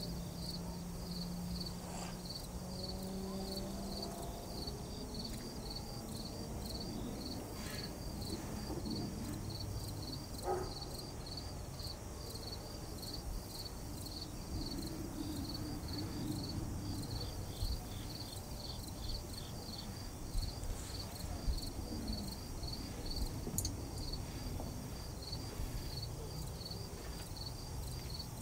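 Insects chirping in a steady, evenly repeating high-pitched pulse, over a low rumble of outdoor background noise.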